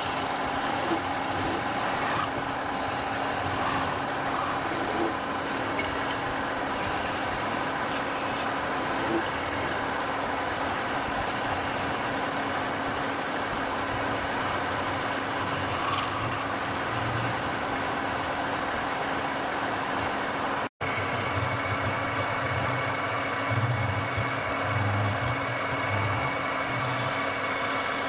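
Wood lathe running steadily while a turning tool scrapes and cuts the spinning wood, a continuous rasping over the motor's hum. The sound drops out for an instant about two-thirds of the way through.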